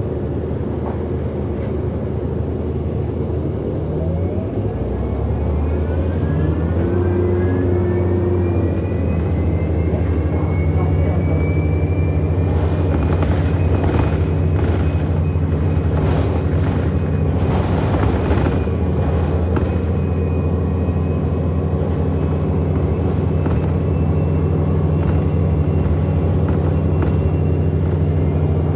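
Inside a 2008 Orion NG HEV diesel-electric hybrid bus pulling away: a steady low engine drone grows louder, while a motor whine rises in pitch over several seconds and then holds steady. Bursts of hiss come and go about halfway through.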